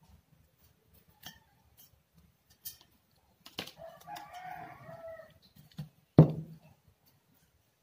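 A rooster crowing once, faintly, for about a second and a half starting about three and a half seconds in, over a few light taps of things being handled on a tabletop. About six seconds in there is a single louder knock as the aerosol spray can is picked up.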